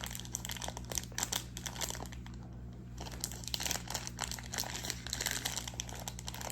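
Gooey slime being squished and stretched by hand, giving off a dense run of irregular wet clicks and crackling pops, over a steady low hum.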